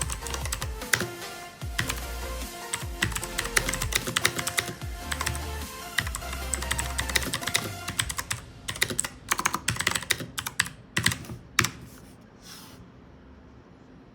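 Typing on a MageGee mechanical keyboard with clicky blue switches: rapid key clicks over background music. About eight seconds in the music fades out, and the typing thins to scattered keystrokes that stop near the end.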